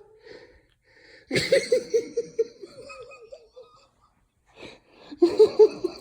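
A person laughing: a breathy burst of laughter about a second and a half in that trails off over a couple of seconds, then another short bout near the end.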